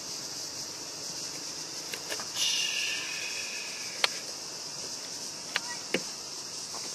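Steady high-pitched chirring of insects in the grass. Over it come a rustle and a few sharp clicks, the loudest about four seconds in, as the boat's battery connectors are handled and pulled apart.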